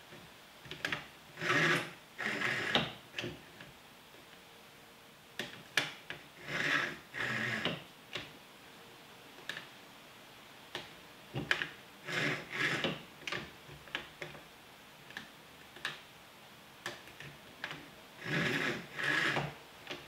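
Homemade plywood quick-release vise mechanism being worked by hand: the steel threaded rod slides and rubs through the plywood housing in pairs of short strokes every few seconds, with light clicks and knocks in between.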